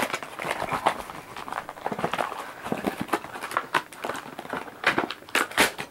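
Hands handling and opening a puzzle cube's packaging: irregular clicks, taps and rustles, with a louder cluster of clicks near the end.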